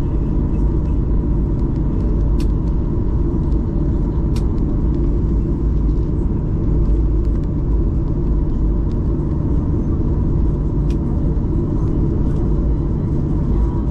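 Cabin noise of a Boeing 737-800 with its engines running: a steady low rumble with a faint steady hum above it, and a few faint ticks.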